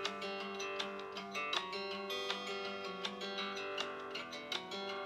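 Guitar music: plucked notes in a steady flowing pattern, several a second, over held lower notes.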